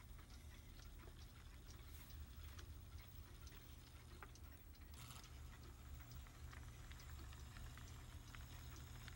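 Faint, irregular clicking of an HO-scale model train's metal wheels rolling along the track, over a low steady hum. A brief hiss comes about five seconds in.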